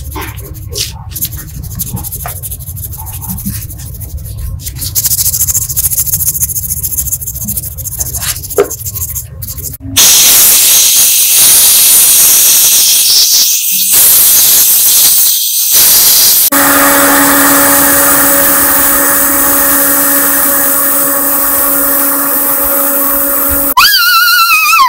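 Hand sanding of a steel pistol part with abrasive, scratching and rubbing. About ten seconds in, a pneumatic die grinder starts with a loud hiss of air, then settles into a steady hum. Near the end its whine wavers in pitch as it is pressed against a rusted part.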